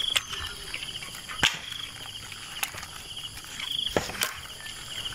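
Insects chirping in short, repeated high trills, with a few sharp knocks: one about a second and a half in, and two close together near four seconds.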